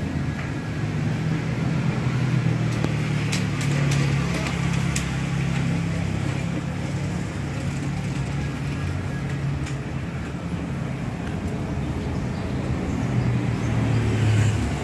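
Street traffic: a steady low hum of passing car and motorbike engines. A few sharp clicks come roughly three to five seconds in, and the traffic swells louder near the end.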